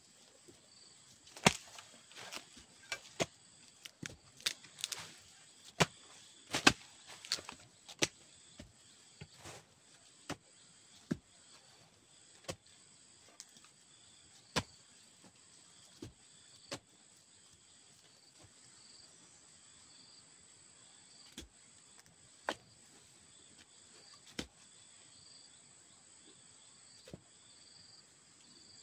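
A hoe blade striking and scraping into clay soil in irregular strokes, frequent in the first ten seconds and more spaced out after. A steady high-pitched insect drone runs behind.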